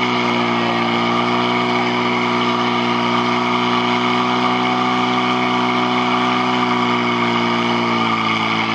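Portable fire-pump engine running flat out at high revs, a loud steady drone. Near the end its pitch drops slightly, about when water reaches the nozzles.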